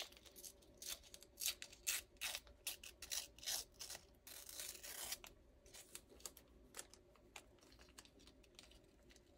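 Faint crackling and rustling of a paper sticker being peeled from its backing and a clear plastic sheet being handled by fingers, in quick crackles that are busiest in the first five seconds and sparser after.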